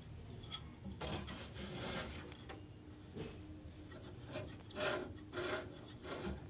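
Irregular rubbing and scraping, with a few short knocks between about four and six seconds in, from hands-on work on the air conditioner during cleaning.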